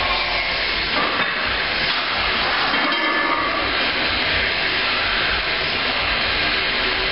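Steady, loud rushing hiss with no rhythm and no clear knocks or clanks, like air blowing through a fan or blower.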